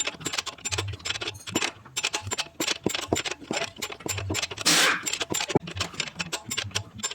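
Rapid, irregular metallic clicking and rattling of hand tools working on a car's front suspension, with a short hiss about two-thirds of the way through.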